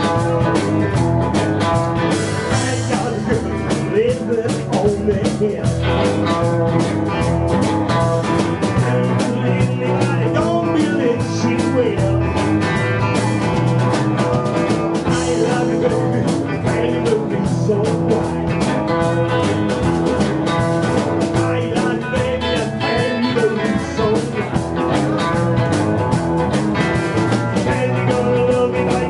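Live blues band playing: two electric guitars, electric bass and a drum kit, at a steady level.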